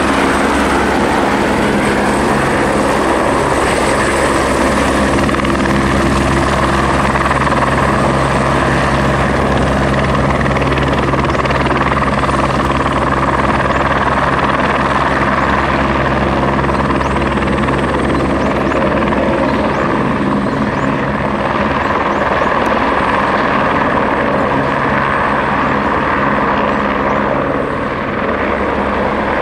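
Airbus Helicopters AS350B3 Ecureuil helicopter hovering and moving slowly close by: the steady drone of its three-blade main rotor and single turboshaft engine, loud throughout, with a thin high turbine whine that fades out about halfway through.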